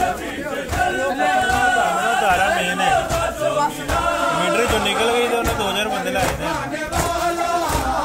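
A group of men chanting a noha together in unison, over a steady beat of hands striking chests in matam.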